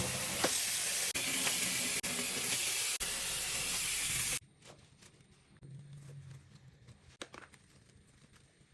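Loud steady hiss, like sizzling or spraying, cut into short pieces about a second long, stopping abruptly a little over four seconds in; after that it is quiet, with a few faint clicks and a short low hum.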